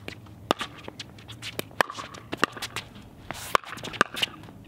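Pickleball rally: paddles striking the hollow plastic ball back and forth in a series of sharp pops, about half a dozen hard hits spaced roughly half a second to a second apart, with lighter taps and shoe scuffs on the hard court in between.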